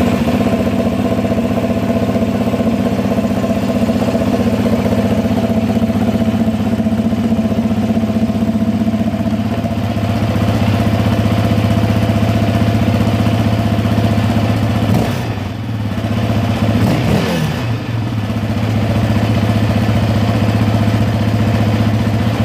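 Yamaha Raptor 700R ATV's single-cylinder four-stroke engine running at idle with its airbox reinstalled. There is a brief dip and shift in pitch about 16 seconds in, then it settles back to a steady idle.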